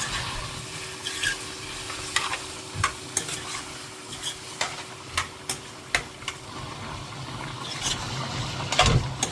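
A spoon stirring food in a pan on the stove, knocking and scraping irregularly against the pan over a steady sizzle of frying.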